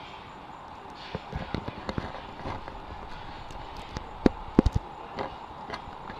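Handling noise from a handheld camera: scattered clicks and knocks as fingers grip and move it, with a few sharp thumps a little past four seconds in.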